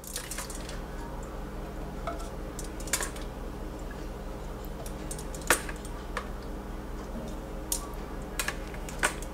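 A handful of short, sharp clicks spaced a second or two apart as marinated chicken drumsticks are laid one by one into a cast-iron pot, utensil and meat knocking lightly against the pot, over a steady low hum.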